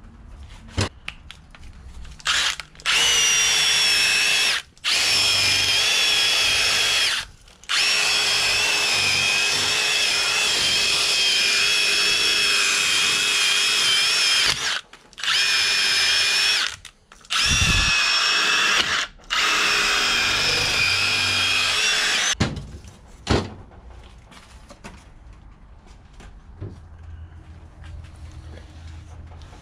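Cordless drill running in repeated bursts of a few seconds each with a steady high whine, stopping and restarting about six times. A short low knock falls between two of the bursts.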